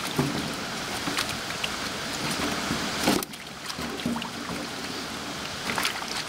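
Water splashing and sloshing in a crate as fish are shaken out of a fyke net into it, with scattered small knocks and one sharp, louder splash about three seconds in.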